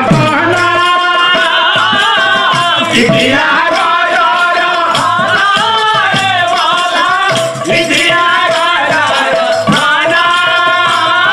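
Male pala singer singing a verse of an Odia chhanda, his melody wavering and held, over a steady beat of percussion strokes with a jingling, rattle-like accompaniment.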